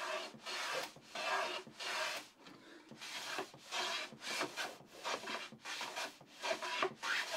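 Hand plane cutting chamfers along the long-grain edges of a wooden board: quick, short scraping strokes of the blade on wood, about two to three a second.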